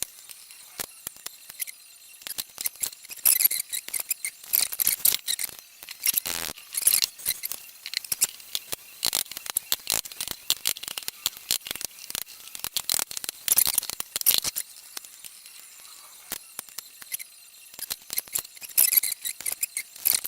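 Irregular light clicks, ticks and scrapes of a hand tool and small steel parts being worked on an aluminium motorcycle engine case, with no heavy blows.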